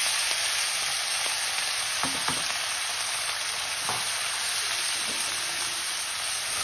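Chopped radish leaves and radish pieces sizzling steadily in hot spiced oil in a nonstick kadhai as they are stirred with a steel spatula, with a few light knocks of the spatula against the pan about two and four seconds in.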